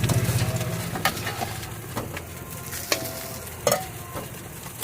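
Food sizzling in a hot pan while a metal ladle stirs it, striking the pan sharply about once a second.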